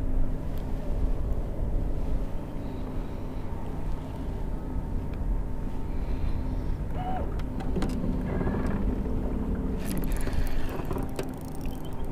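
Wind rumbling on the microphone over a steady low hum, with a few sharp clicks and rattles near the end.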